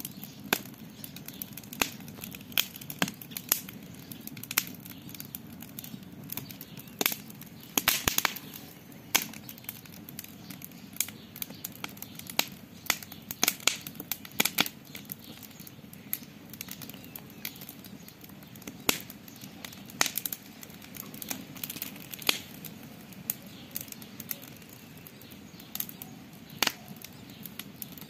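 Campfire crackling: irregular sharp pops and snaps of burning wood, sometimes several in quick succession, over a steady low rumble of the fire.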